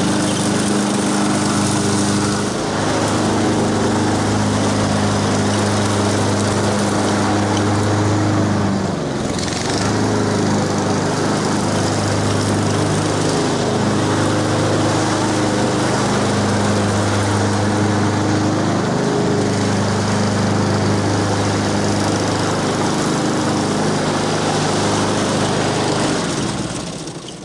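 Gas walk-behind lawn mower engine running steadily under load while cutting grass, with a brief dip in level about a third of the way through. The engine dies down right at the end.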